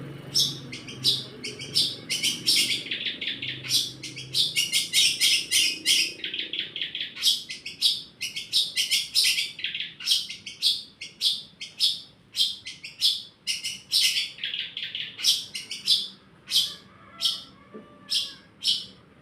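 Long-tailed shrike singing fast runs of high chirps that mimic Eurasian tree sparrow calls. Near the end the song thins out to single chirps a little under a second apart.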